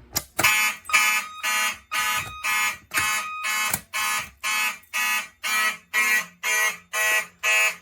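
Fire alarm system's Wheelock and Simplex notification appliances sounding the alarm tone, set off by a manual pull station. The tone pulses evenly about twice a second, with a steady higher tone under it for the first few seconds.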